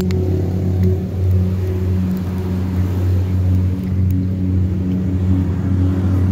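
Steady low motor hum with a few faint clicks.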